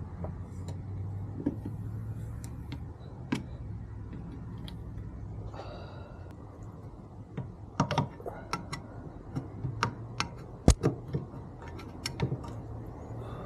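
Irregular light clicks and clinks of small metal hardware being handled and set down, coming thicker in the second half, with one sharper knock near the end, over a steady low hum.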